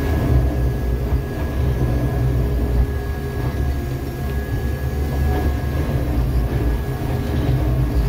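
Jackson 6700 track tamper running at work, a steady heavy diesel-and-hydraulic drone with a thin steady whine above it.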